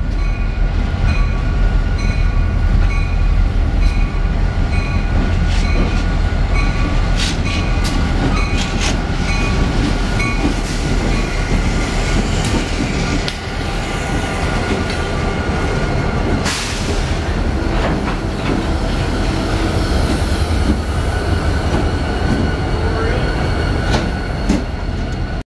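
Four EMD GP38 and GP40 diesel locomotives running light with no cars, passing close by: a steady, loud diesel rumble with wheel clicks on the rail, and one sharp clatter about 16 seconds in.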